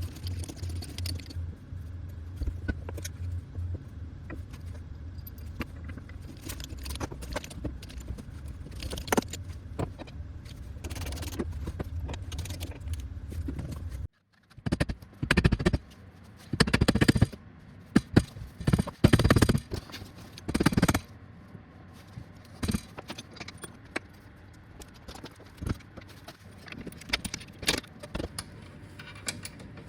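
Metal tools and suspension parts clinking and rattling over a steady low hum, scattered clicks throughout. About halfway through the hum stops abruptly, and a handful of louder rattling bursts follow, each under a second long.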